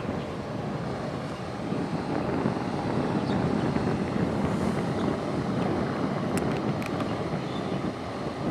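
Steady low rumble of a large container ship passing close, its engine and propeller wash mixed with wind buffeting the microphone. A few faint ticks come about six to seven seconds in.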